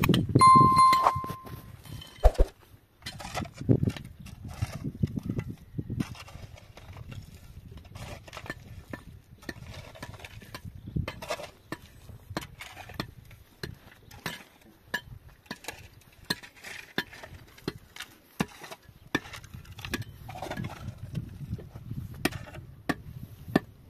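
Hollow concrete blocks knocking and clinking as they are handled, with a shovel scraping and digging through block rubble. One clear ringing clink comes near the start, then irregular knocks continue.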